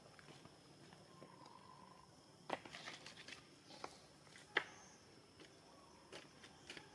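Faint outdoor quiet with a few scattered sharp clicks and taps, the loudest about two and a half and four and a half seconds in, over a faint steady high whine.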